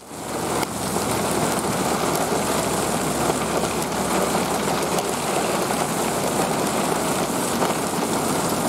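Heavy hail and rain pelting down steadily in a mountain storm, a dense even hiss of pellets striking the truck and the gravel road.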